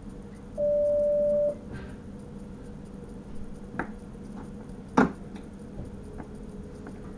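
A single steady electronic beep, about a second long, in the driver's cab of an NS Sprinter train, over the cab's steady electrical hum. Later come two sharp clicks, the second one louder.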